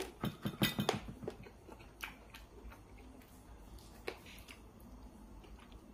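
A person chewing and eating at close range: a quick run of small wet clicks in the first second, then a few single clicks further on.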